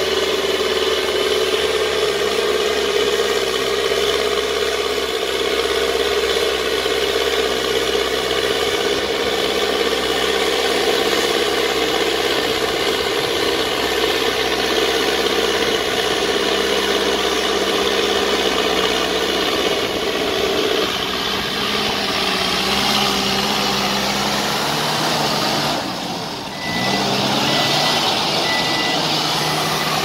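Mahindra backhoe loader's diesel engine running steadily under load as it pushes sand with its front bucket, its note shifting about two-thirds of the way through. Near the end, its reversing alarm beeps repeatedly.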